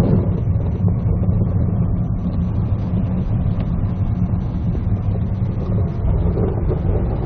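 Steady low rumble inside a moving car's cabin: engine and tyre noise while driving on a snowy road.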